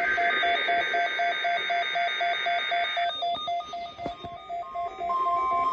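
Weather radios sounding their alerts for a NOAA Required Weekly Test: a rapid electronic beeping at about four beeps a second, over a buzzing digital data tone that stops about three seconds in. Stepping electronic alert tones follow, and a steady higher tone starts near the end.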